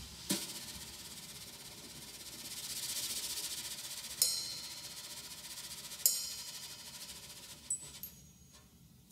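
Drum-kit cymbals in a quiet jazz passage: a soft cymbal swell that builds and fades, then two sharp metallic strikes about two seconds apart that ring on.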